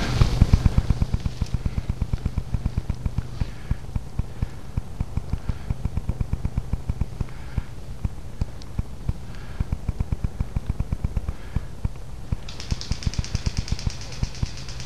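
A person running through woodland leaf litter: quick, regular footfalls and camera jolts, about four to five a second. About twelve seconds in, a fast, high-pitched rattle joins them.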